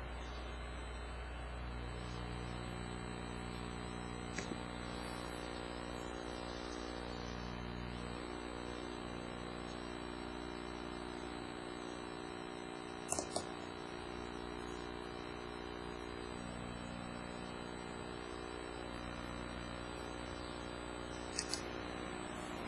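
CNC engraving machine running, a steady whir of motors made of several held tones over a low hum, the low tones changing every few seconds. A few brief clicks come through, a pair near the middle and another pair near the end.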